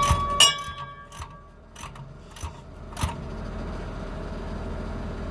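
Metal tools clanking and ringing against steel twice at the start, then a few lighter clicks. This is hand work on a truck air-bag mounting bolt. A steady low hum sets in about three seconds in.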